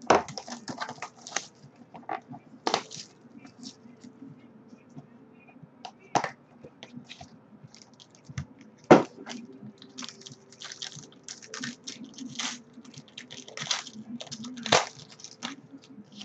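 Crinkling, clicking and tapping of a cardboard trading-card box and its wrapping being opened and handled, with a sharp knock about nine seconds in.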